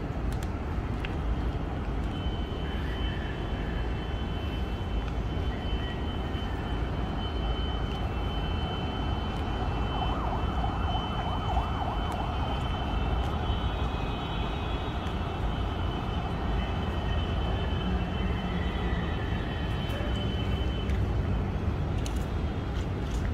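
Steady city traffic rumble rising from the streets below, with a thin, steady high-pitched tone that starts about two seconds in and stops near the end.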